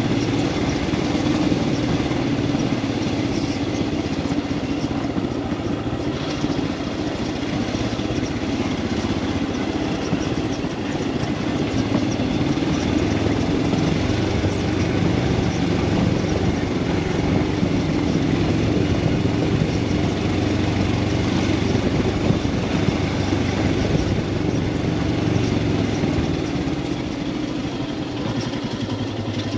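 Royal Enfield Himalayan 411's single-cylinder engine running steadily while the motorcycle cruises at a low, even pace, with road noise underneath.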